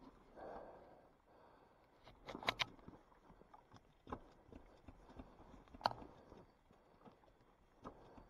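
Scattered light clicks and knocks with a little rustling, handling noise on a motorcycle whose engine is not running.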